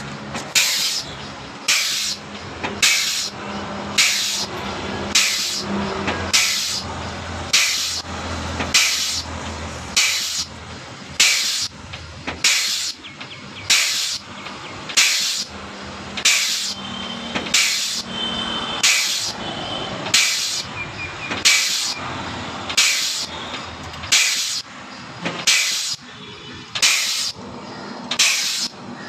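Air-over-hydraulic 100-ton jack's pneumatic pump cycling: a sharp hiss of exhaust air about every second and a half, each starting suddenly and fading, with a low hum under it in the first half.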